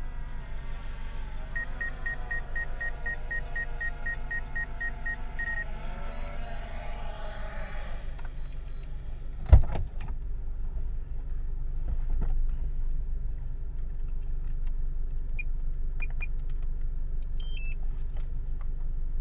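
Inside a parked car: a steady low rumble, with a rapid electronic beeping, about four beeps a second for some four seconds, early on. About halfway through comes one sharp, loud thump, the loudest sound, followed by a few small clicks and handling knocks.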